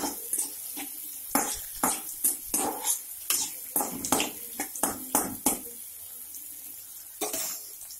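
Chopped tomatoes sizzling in hot oil in a frying pan while being stirred, the utensil scraping and knocking against the pan about two or three times a second. The stirring stops after about five seconds, leaving the sizzle, with one more knock near the end.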